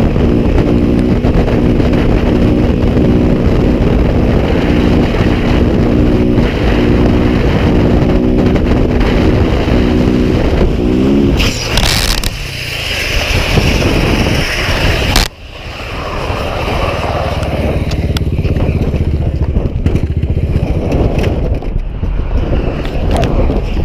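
Motorcycle engine running steadily at speed, with wind rush on the microphone. About eleven seconds in, the engine note breaks off and a loud, harsh scrape follows for about four seconds, typical of a crashed motorcycle sliding along the asphalt, and it cuts off suddenly. After that, wind rush builds and the engine of a motorcycle on the move comes back near the end.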